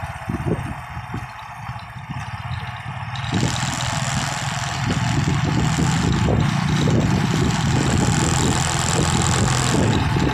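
Motorcycle engine running on the move, mixed with wind rush on the microphone. It gets louder about three seconds in and then holds steady.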